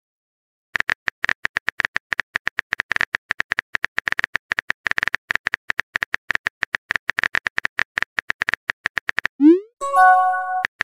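Keyboard tap sound effect of a texting app, a rapid run of short clicks as a message is typed, about eight a second. Near the end a rising swoop and a short electronic chime play as the message is sent.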